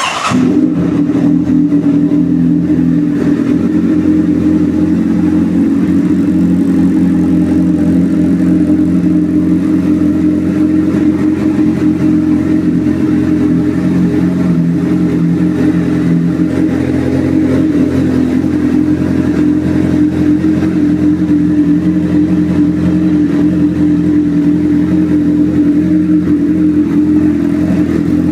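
Honda CBR1000RR inline-four engine running through an aftermarket sport exhaust. It comes in suddenly, then holds a loud, steady idle with an even pitch throughout.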